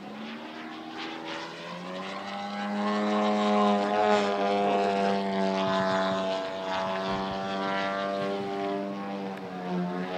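Engine and propeller of a radio-controlled aerobatic model airplane running at steady high throttle, one even engine note that grows louder over the first few seconds as the plane comes closer, dips slightly near the end and swells again.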